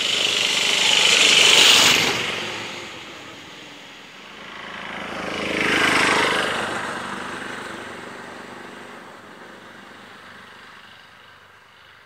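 Engine of a large off-road motor scooter riding past close by, twice: it swells to a peak about two seconds in and drops away, swells again about six seconds in, then fades into the distance.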